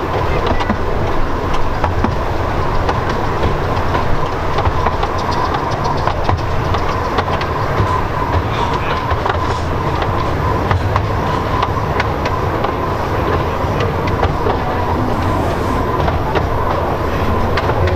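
A 10.25 inch gauge miniature railway train running along its track, heard from on board a carriage: a steady rumble of wheels on rail with a continual patter of clicks.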